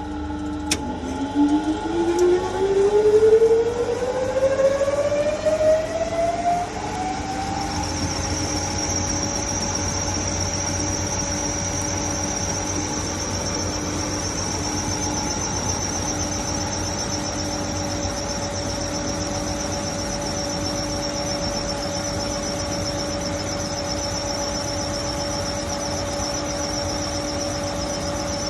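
Gladel washing machine going into its spin: a click about a second in, then the motor's whine rises steadily in pitch as the drum speeds up, with uneven loudness while it accelerates. From about eight seconds in it settles into a steady whine at full spin speed, with a thin high tone above it.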